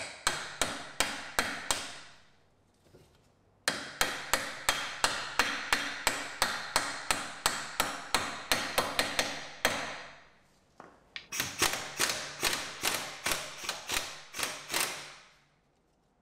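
Lump hammer striking the steel front wheel hub of a Dodge Grand Caravan, in three runs of quick, sharp metallic blows at about three a second, with short pauses between the runs.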